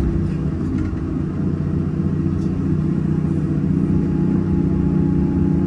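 Hyundai 330 excavator's diesel engine running steadily under load as the bucket digs into a gravel pile, a constant low drone.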